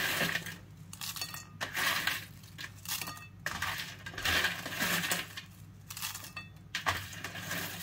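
Handfuls of dry, oven-baked bread croutons scraped off a baking tray and dropped into a salad bowl, rattling and clattering against each other in a series of irregular bursts.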